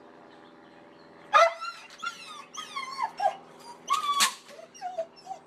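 A dog whining and yelping in a run of high cries that slide up and down in pitch, starting about a second and a half in, with a loud sharp cry near the end.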